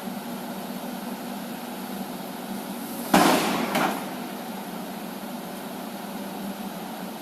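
A loud metal bang, with a smaller second knock about half a second later, over a steady drone: dredging buckets clanking against each other while scooping silt from a pond.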